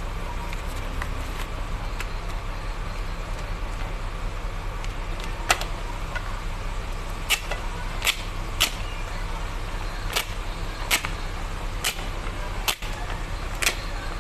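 Sharp clicks, about nine of them, starting about five seconds in, as piston rings are handled and fitted onto a diesel engine piston. A steady low motor-like hum runs underneath.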